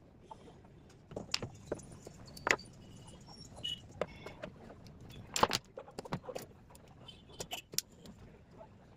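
Irregular metallic clicks, taps and knocks of small metal parts and tools being handled while an angle grinder is taken apart for a bearing change, the loudest knocks about two and a half and five and a half seconds in.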